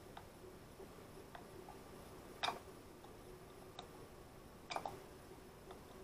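Small scattered clicks and taps of hands working the fitting on a plastic hand-held sandblaster gun, with two louder clicks about two and a half and nearly five seconds in. A faint steady hum runs underneath.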